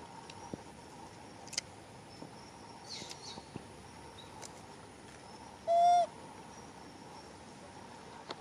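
A macaque's single short coo call about six seconds in: one clear pitched note that rises slightly and then drops. It stands over a faint steady background with a few soft clicks.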